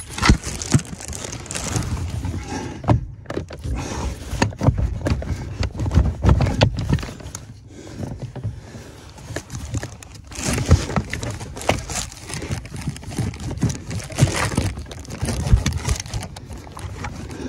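Hands working on a car's clutch pedal assembly under the dashboard: scattered clicks, knocks and rustling of gloves against plastic and metal parts, with dull bumps throughout.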